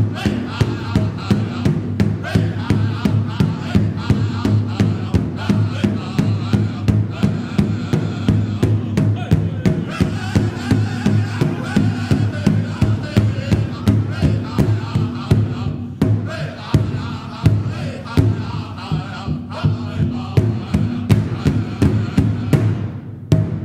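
Background music: a steady drumbeat under chanted singing, cutting off shortly before the end.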